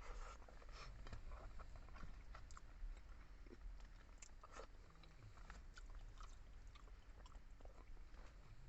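Faint, close-up chewing and mouth sounds of a person eating pork sinigang with rice, with small irregular clicks throughout.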